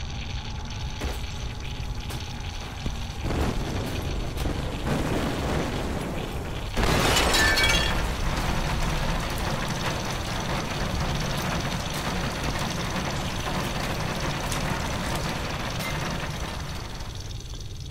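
A machine blowing up and burning: a low rumble that swells, a sudden loud burst about seven seconds in, then a sustained rushing noise of fire that eases off near the end.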